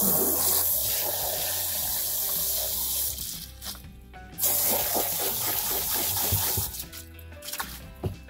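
Water spraying from a hose nozzle onto rock-tumbling stones and ceramic media in a mesh sieve in a sink, rinsing out a tumbler barrel. The spray runs in two stretches, breaking off about three seconds in and starting again about a second and a half later before stopping near the end. Background music plays underneath.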